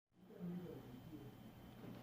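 Faint room tone with a low, steady hum.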